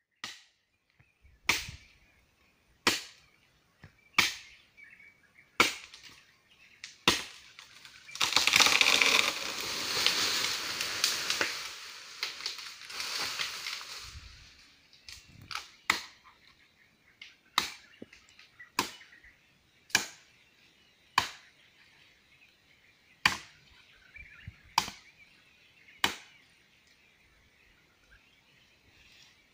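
Hand chopping blows striking a tree trunk, single sharp strokes a little over a second apart. About eight seconds in, the tree comes down, its branches crashing and rustling through the foliage for several seconds. The chopping then resumes at the same steady pace on the felled trunk.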